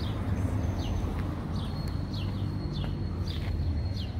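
A bird chirping over and over, short falling chirps about every half second, over a steady low hum.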